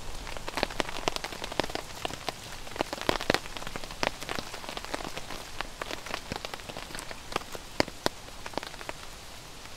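Rain falling on the tent fabric: many irregular drop ticks over a steady hiss.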